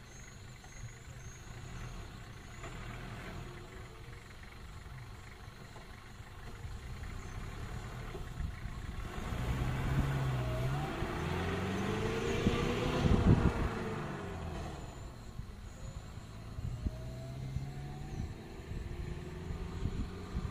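Motor vehicle engines on the road: a steady low idle, then a vehicle's engine rising and falling in pitch as it gets louder, loudest about two-thirds of the way through, then fading. Faint bird chirps can be heard near the start.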